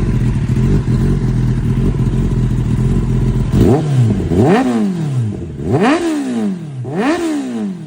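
Kawasaki ZX-10R inline-four through an aftermarket exhaust, idling with a steady note, then revved hard three times about three and a half seconds in, each rev rising and falling back.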